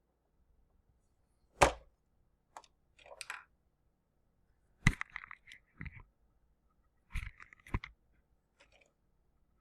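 Handling of a hard plastic toy fire truck: a series of irregular sharp clicks and knocks, with quiet gaps between them.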